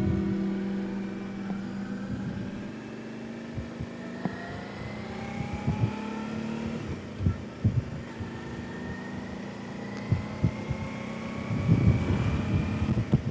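Suzuki V-Strom DL650A's 645 cc V-twin engine running under way, its pitch climbing slowly as the bike accelerates, then dropping and climbing again about eight seconds in. Irregular low thumps of wind buffeting on the helmet microphone run alongside.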